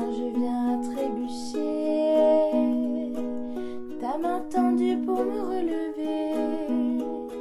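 Soft, gentle music: a plucked string instrument playing chords and a slow melody.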